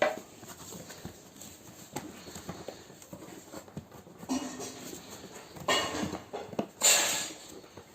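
Cardboard and plywood packing in a shipping box being handled: quiet rustles and light knocks, then short scraping rushes about four and six seconds in and a louder one near the end.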